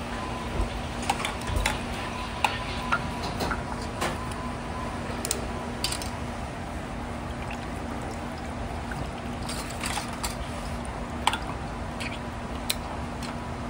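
Canned green peas draining in a wire-mesh strainer over a stainless-steel sink: canning liquid trickling and dripping through, with scattered small ticks. A steady low hum runs underneath.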